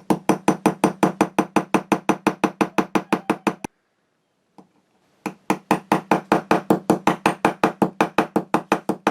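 Small hammer rapidly peening a rivet on a metal anvil, about seven or eight quick ringing taps a second, in two long runs with a short pause and a single tap between them.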